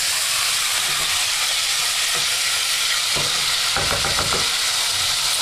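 Chunks of beef and pork sizzling steadily in olive oil as they brown in a pot, stirred with a wooden spoon, with a few knocks about three to four seconds in.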